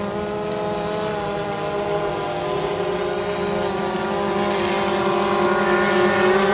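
Electric whine of a radio-controlled jet ski's brushless motor mixed with the hum of a quadcopter drone's propellers, heard as several steady tones together. It grows louder after about four seconds as the jet ski runs close by.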